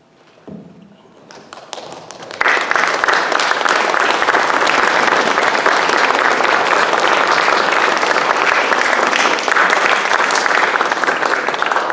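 Audience applauding: a few scattered claps at first, breaking into steady full applause about two seconds in.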